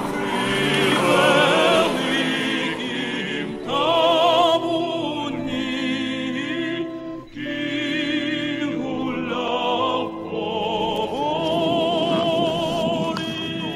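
Background music in an operatic style: long held notes with heavy vibrato, in phrases broken by short pauses.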